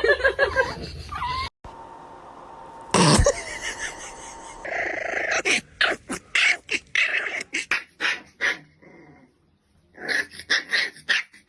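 A puppy growling and yipping in many quick short bursts, with a sudden loud knock a few seconds in and a brief pause near the end.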